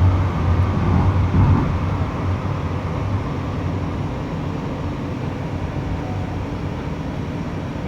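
Steady low rumble and hum of a light rail car heard from inside, easing slightly after the first couple of seconds.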